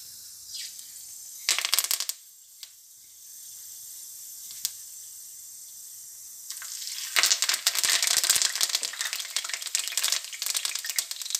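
Mustard seeds and curry leaves frying in hot oil in an aluminium kadai for tempering. A short burst of crackling comes about a second and a half in. From about seven seconds in, the curry leaves hit the oil and it sizzles and crackles loudly.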